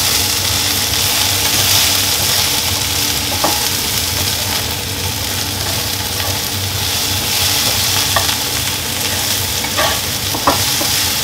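Sliced bay bolete mushrooms sizzling in a frying pan in olive oil and rendered guanciale fat, stirred with a wooden spatula. A steady frying hiss, with a few light taps of the spatula on the pan.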